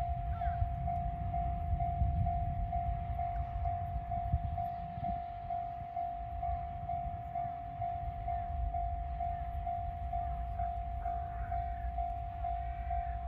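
Japanese level-crossing electronic warning bell ringing in even strokes, about two a second. Under it is the low rumble of a passing E217-series electric train, heaviest in the first few seconds and then easing.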